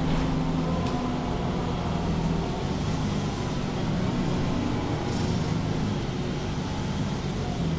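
Diesel engine of a MAN Lion's City G articulated city bus running with a steady drone whose pitch shifts a few times.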